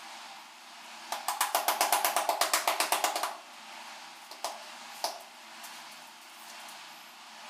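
A ceramic wall tile being tapped rapidly into its mortar bed to seat it, about ten quick knocks a second for two seconds. Two single knocks follow a little later.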